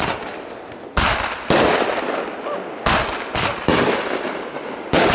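Aerial fireworks bursting overhead: about seven sharp bangs in five seconds at uneven spacing, each trailing off in a long rolling echo.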